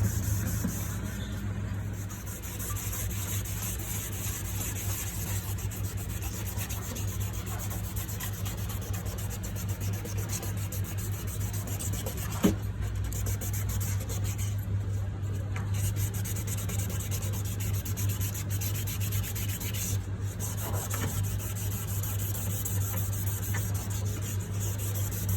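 Continuous rubbing and sanding of a plastic headlight lens, over a steady low hum, with one sharp click about halfway through.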